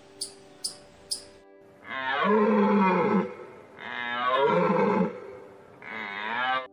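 An animal giving three drawn-out calls over background music, the last one shorter, after a few sharp high clicks in the first second and a half.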